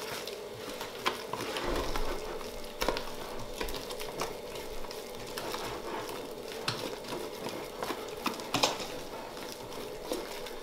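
A spatula stirring thick mashed potato and egg yolk in a stainless steel pot, scraping along the sides, with a few sharp knocks of the spatula against the metal.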